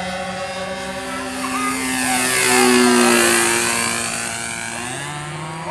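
Radio-controlled model airplane's engine running as the plane makes a low pass. It grows louder to a peak about three seconds in, then fades, its pitch dropping as it goes by.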